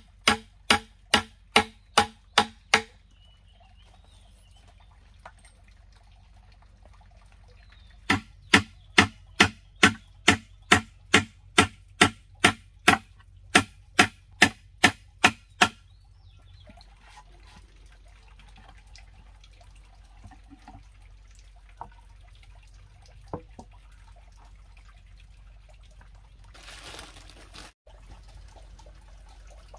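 Claw hammer driving nails into a wooden plank: steady hammer blows about three a second, stopping a few seconds in, then a second run of blows lasting about eight seconds. After that come only faint handling sounds as the next nail is set.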